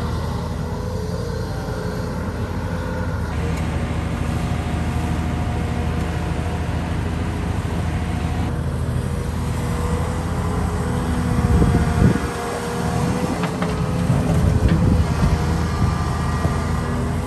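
Heavy diesel engine of a Volvo excavator running steadily as it works, with two louder surges past the middle.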